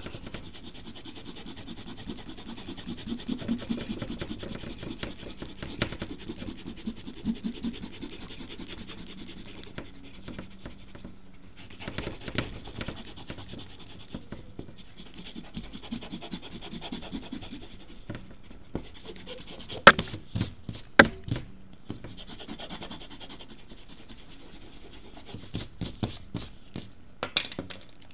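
Handheld eraser rubbing back and forth over paper in quick strokes, erasing pencil lines from a drawing, in spells with short pauses. A few sharp knocks come in the last third.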